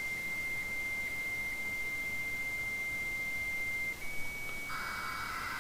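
Dial-up modem handshake on an Apple 300/1200 baud modem: a steady high answer tone for about four seconds, then a slightly higher tone, joined near the end by the hissing data tones of the two modems negotiating a 1200-baud connection.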